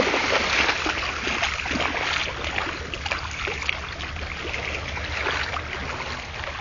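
Sea water splashing and washing, irregular splashes over a steady hiss and a constant low rumble.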